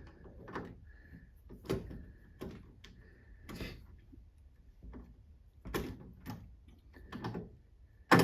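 Light clicks and knocks as a door handle and its gasket are handled and fitted into the metal door of a 1966 Ford Mustang, with a sharper knock near the end.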